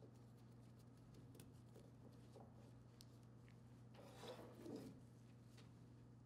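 Near silence: room tone with a low steady hum, a few faint clicks, and soft handling noises about four to five seconds in as small steel valve parts are moved on a table.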